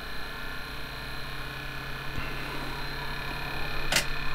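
Small brushed DC motor from a VCR running with a steady hum and whine. About halfway through a higher whine comes in as the supply is turned up toward 5 volts and the motor speeds up. A sharp click comes near the end.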